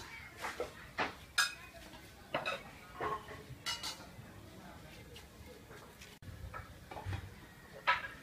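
Metal cleaver knocking and scraping on a wooden chopping board as ground paste is worked with the blade, in irregular sharp taps, some with a brief metallic ring.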